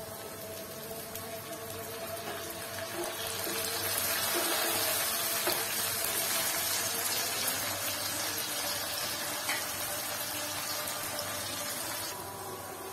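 Water poured into a frying pan of browned fried onions in hot oil, hissing and bubbling. The hiss swells a few seconds in, holds, and dies down near the end.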